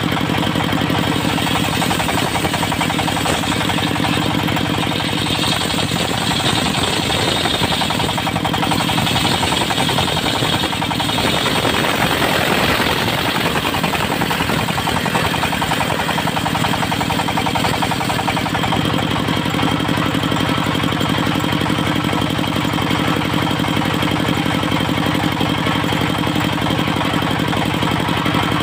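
Engine-driven mobile circular sawmill running steadily. Between about five and thirteen seconds in, a harsher, higher hiss rises over the engine as the disc blade works through juar timber.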